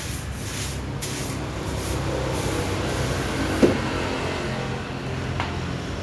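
A hand brush sweeping in repeated strokes across a wooden tabletop, over the steady hum of an engine running in the background. A single sharp knock sounds about three and a half seconds in.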